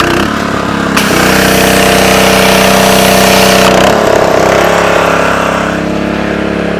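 Pressure washer's Honda 5.5 hp engine running while the wand blasts water onto concrete with a steady hiss. There is a click about a second in, and the engine note shifts. The spray hiss stops a little under four seconds in, and the engine note changes again as the load comes off the pump.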